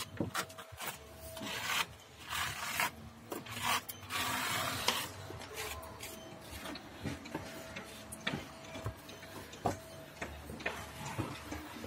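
Plastering trowels scraping and rubbing grainy decorative plaster over a facade wall, in several rough strokes of about half a second to a second each in the first five seconds, followed by scattered light clicks and taps.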